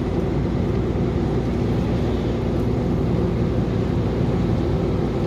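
Semi-truck diesel engine running under load, heard from inside the cab as a steady low drone with road noise, as the loaded truck climbs a grade without a run-up.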